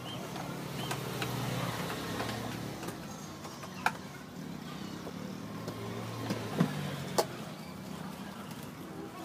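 A motor vehicle's engine running as it passes, swelling over the first two seconds and again a little past the middle. Three sharp knocks stand out, one about four seconds in and two close together around seven seconds.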